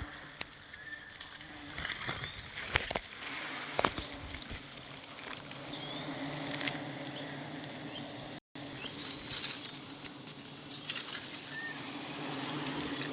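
Wild honey bees buzzing in a steady low hum that settles in after a few seconds, with several sharp snaps and rustles of handling in the first four seconds.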